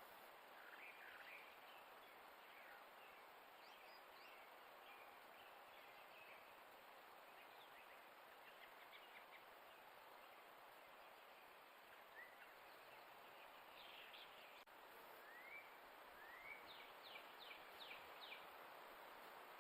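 Faint, scattered bird chirps and short rising whistled notes over a steady hiss, with a quick run of five notes near the end.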